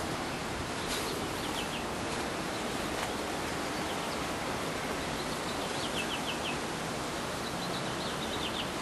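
Steady outdoor background hiss, with a small bird chirping now and then in quick runs of three or four short high notes.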